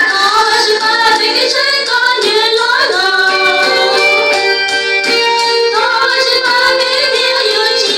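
Two young women singing a Hmong Christian praise song into microphones, with instrumental accompaniment under their voices.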